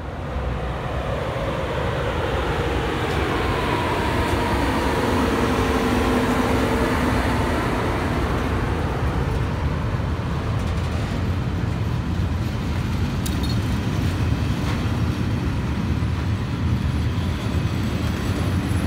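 A freight train passing close by: the locomotive goes past with a hum of a few held tones, then a long string of sliding-wall covered freight wagons rolls by with a steady rumble and scattered clicks from the wheels.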